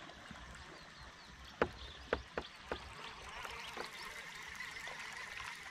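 Faint, high chirring chorus of small animals calling, growing a little louder about three seconds in. A few light clicks sound about two seconds in.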